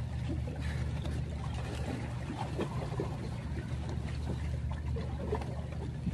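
Steady low rumble of wind and sea water at the shoreline, with faint scattered knocks.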